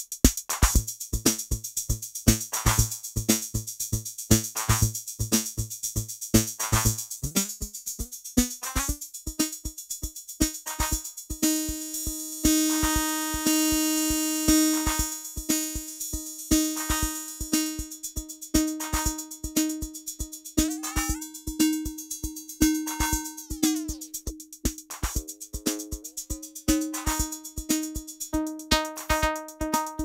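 A 118 BPM drum-machine loop played through Ableton Live 11's Spectral Resonator effect, which turns each drum hit into a ringing pitched tone. The resonant pitch slides upward about eight seconds in, and slides again in the second half as the frequency and shift settings are changed.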